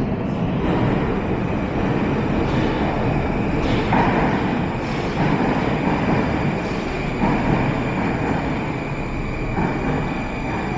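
Moscow Metro train running at a station platform: a loud, steady rumble with a faint steady high whine, and a few sharper clacks in the middle.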